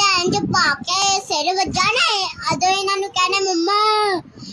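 A young child singing in a high voice, in several drawn-out phrases that slide up and down in pitch.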